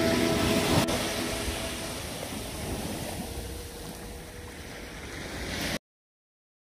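Background music fading out, giving way to the hiss of surf washing up a sandy beach. The surf dies down, swells slightly again, then cuts off abruptly near the end.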